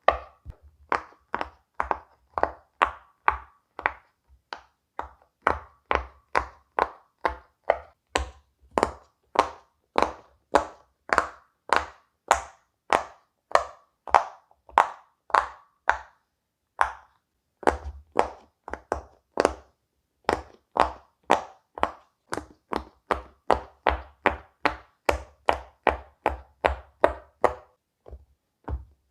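Silicone pop-it fidget toy bubbles being pressed one after another: a steady run of short pops, about three a second, with brief pauses three times.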